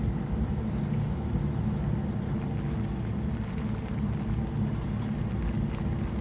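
Steady low hum of a ventilation fan with rain falling and dripping over it, and scattered light ticks of drops.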